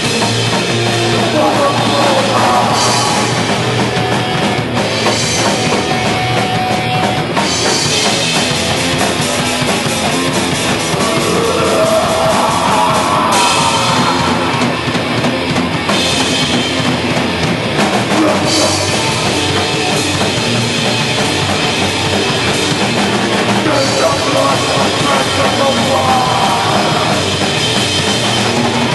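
Punk band playing loud, fast hardcore punk with distorted electric guitars, bass and a pounding drum kit, without a break.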